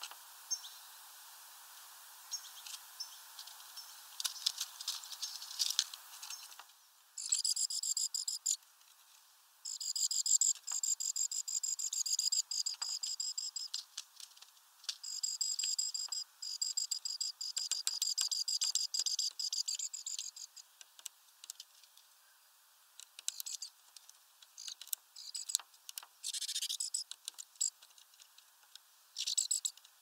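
Small birds at a sunflower-seed feeder, great tits and a European goldfinch, make scattered sharp clicks and taps as they peck and crack seeds on the feeder tray. Several bursts of a high, rapid insect-like trill come in, each lasting a few seconds.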